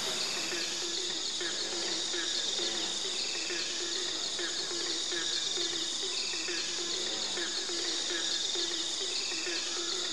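Forest insects droning steadily at a high pitch, with a short higher call repeating about every three seconds over it.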